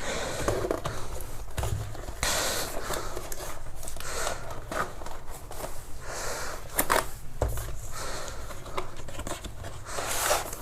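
Cardboard packaging being handled: an inner box sliding and scraping out of its outer cardboard carton, with rustling and a few short taps.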